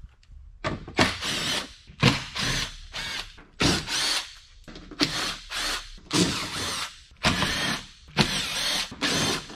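Cordless drill running in about ten short bursts, each spinning up and down, as it backs out the screws holding the plastic underbody panel.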